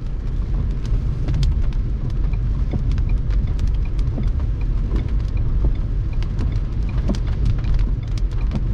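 Steady low wind rumble buffeting the microphone of a car-mounted camera while driving, with scattered clicks of raindrops hitting the car and camera.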